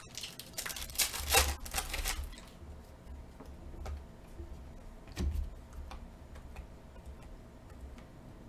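Trading cards being handled and slid one by one off a stack: a dense run of rustling and clicks between about half a second and two seconds in, then scattered light clicks of card edges and a soft knock about five seconds in.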